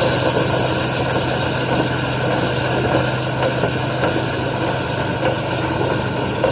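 Dryer vent cleaning equipment running steadily: a constant motor hum under an even rushing noise.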